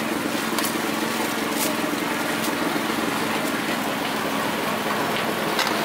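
A small engine running steadily, with a few faint clicks over it.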